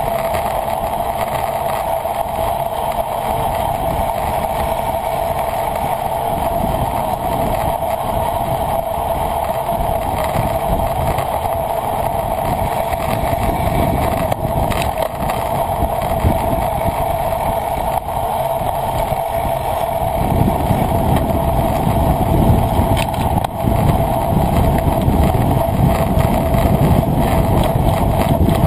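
Wind rushing over a camera on a racing bicycle at speed, a steady noise with a low rumble that grows louder about twenty seconds in.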